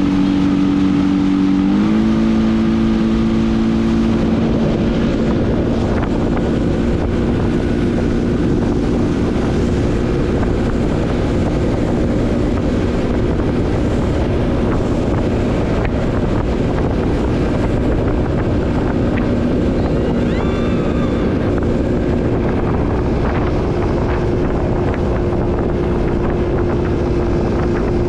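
Outboard motor running steadily at speed while the boat tows an inflatable tube, with rushing water and wind on the microphone. The engine's pitch steps up slightly about two seconds in and then holds steady.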